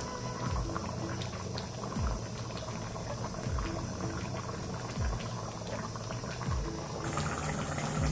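Fish curry with water added bubbling at a boil in the pan, with a soft low pop about every second and a half.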